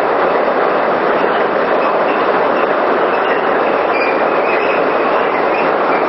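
Steady, loud rush of water flowing through a running micro-hydropower turbine, an even noise with no rhythm or knocks.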